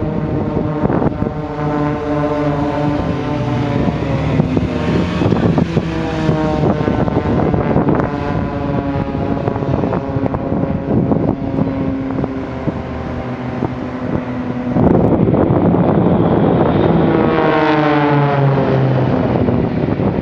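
Propeller engines of Extra 300 aerobatic display planes droning overhead, their pitch shifting as they manoeuvre. About three-quarters of the way through, a louder pass comes by with the engine note falling. Wind buffets the microphone throughout.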